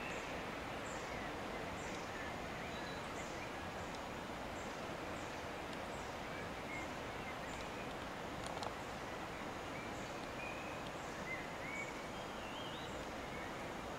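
Birds chirping: scattered short calls and a high chirp repeating about once a second, over a steady outdoor background hiss, with a single short click about eight and a half seconds in.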